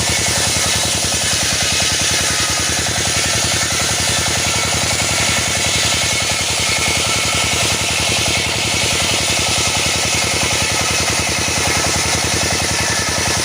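Engine-driven wood saw running steadily at constant speed, cutting teak.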